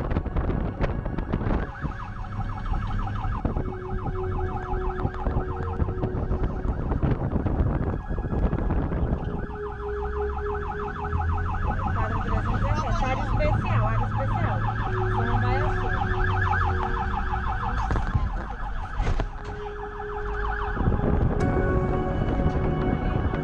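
Ambulance siren sounding continuously in fast rising-and-falling sweeps, heard from inside the cab over the low rumble of the vehicle.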